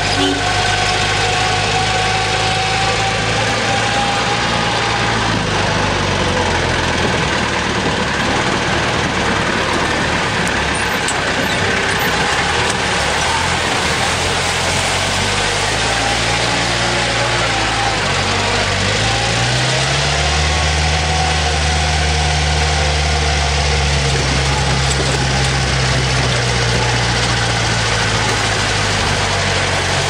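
An old four-wheel-drive jeep's engine running steadily, heard from inside the cab, over the rough rushing noise of its wheels on a wet riverbed. About twenty seconds in, the engine pitch rises and holds higher.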